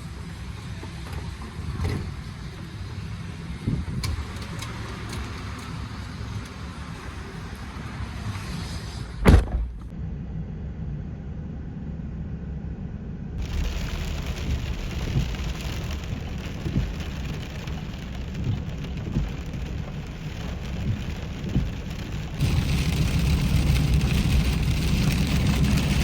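Heavy rain pelting a pickup truck as it runs along the road, with a steady low rumble of engine and road noise. There is one brief loud thump about nine seconds in.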